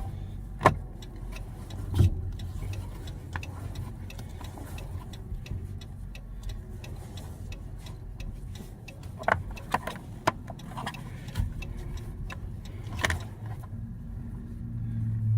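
Scattered plastic clicks and knocks as the steering-column cover is pressed and worked over its locating tabs, which are not clamping down as they should. A steady low hum runs underneath, and a low held tone comes in near the end.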